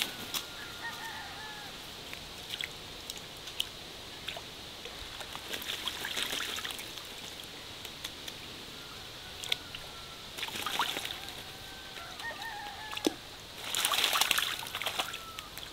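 Hooded crow bathing in a shallow puddle, splashing water in bursts, the biggest splashes about six, eleven and fourteen seconds in, with drips in between. Chickens call faintly in the background.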